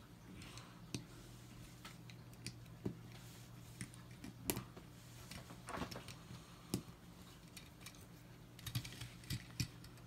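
Plastic LEGO bricks clicking and clattering as they are pressed together and handled on a tabletop: faint, irregular clicks, some in quick little clusters, over a steady low hum.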